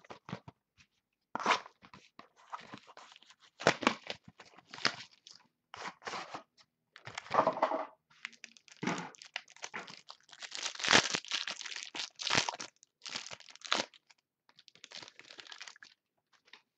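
A box of trading cards being torn open, its packaging crinkling and tearing in irregular bursts.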